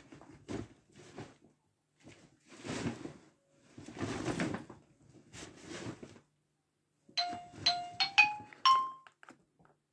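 Irregular rustling and handling noises, then near the end a quick run of five short electronic chime tones, stepping upward in pitch.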